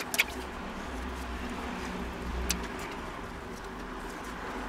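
A steady low hum with a faint hiss. Over it come a couple of soft clicks right at the start and a faint one about halfway, as a wooden spoon scoops clarified butter from a plastic tub into an empty pot.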